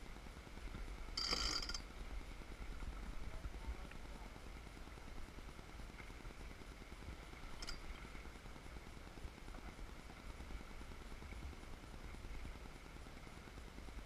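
A wooden sailboat under sail: a steady low rumble of wind and water, with a brief high-pitched squeak or clink from the deck gear about a second in and a shorter, fainter one near eight seconds.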